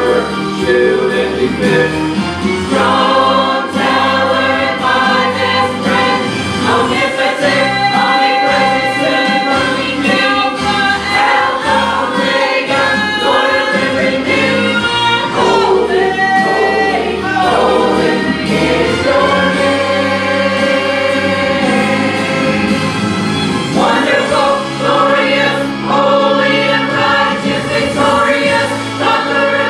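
A choir singing a gospel hymn with instrumental accompaniment, the voices moving together over held bass notes.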